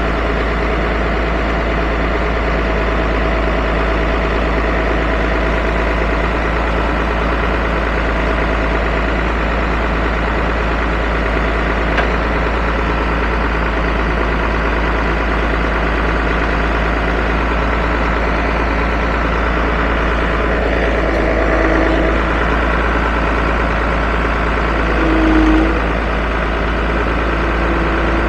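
A vehicle engine idling steadily, with a short swell about 25 seconds in.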